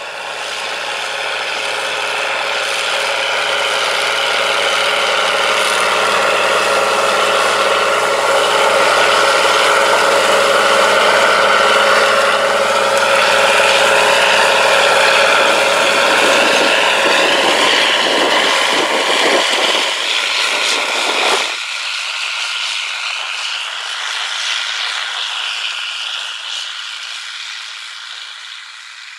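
An International Harvester 3588 2+2 tractor's turbocharged six-cylinder diesel running under load as it pulls a planter past, with the planter's mechanisms clattering along with it. The engine grows louder to a peak around the middle, then eases off. About three-quarters of the way through, the deep engine note drops out abruptly, leaving a thinner sound that fades.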